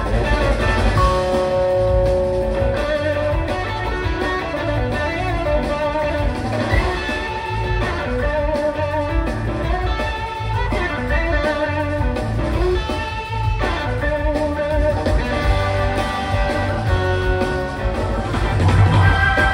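Live blues-rock band playing an instrumental passage, with an electric guitar lead carrying a melody of bending notes over the rhythm section.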